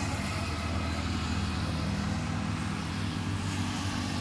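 An engine or motor running steadily with a low, even hum.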